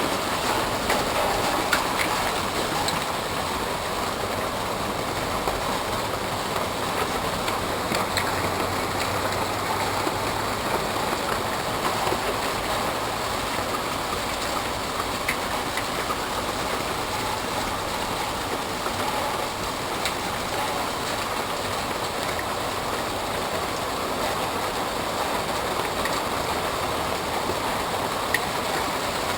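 Hailstorm: a steady, dense clatter of hailstones falling and striking surfaces, with sharper single impacts of larger stones here and there.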